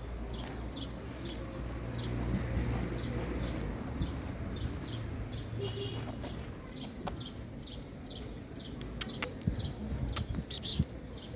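A small bird chirping over and over, about two short, high, falling notes a second, over a steady low hum. A few sharp clicks come near the end.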